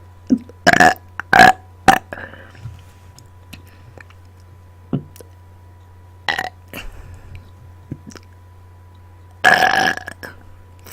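Person burping on command, loud belches one after another: a quick run of short burps in the first two seconds, another around six seconds in, and a longer drawn-out belch near the end.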